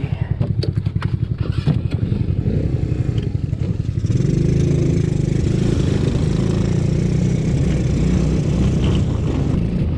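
Small 125cc single-cylinder engine of a mini jeep go-kart running unevenly and pulsing at low revs, with a few clicks and knocks in the first two seconds. About four seconds in it settles into a steadier, higher-pitched run as the jeep pulls away. It is sputtering a bit, with its electrics still wet from a deep water crossing.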